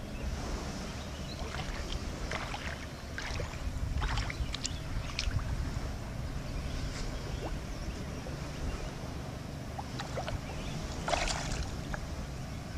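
Small splashes and sloshes of shallow water, scattered and irregular, as someone wades and hauls on a rope, with a louder splash about eleven seconds in. Wind rumbles on the microphone throughout.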